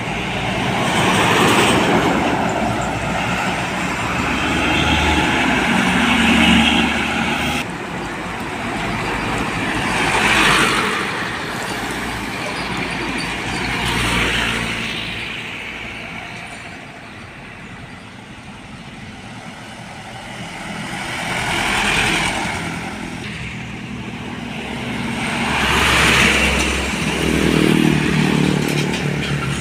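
Road traffic passing close by, one vehicle after another, each rising and fading as it goes past; heavy diesel trucks are among them.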